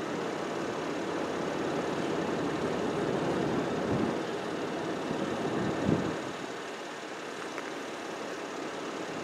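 Steady road-traffic noise, with a vehicle passing close about six seconds in and a lesser swell a couple of seconds earlier; the siren is not sounding.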